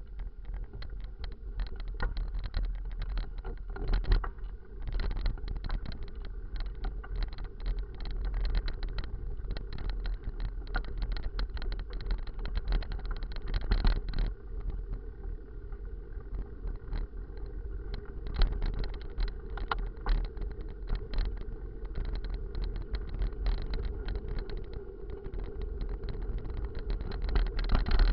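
Mountain bike riding over rough dirt and broken asphalt: wind rumbling on the mounted camera's microphone, with constant clicking and rattling from the bike and camera mount as they jolt over bumps, and sharper jolts now and then.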